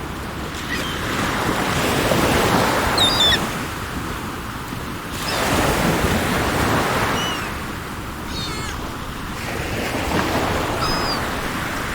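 Sea waves washing in, three surges each swelling and falling back about four seconds apart, with short high bird chirps scattered over them.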